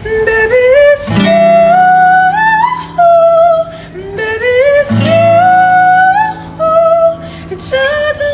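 A man singing a slow, gliding melody while accompanying himself on a strummed acoustic guitar, with fresh chords struck about a second in and again about five seconds in.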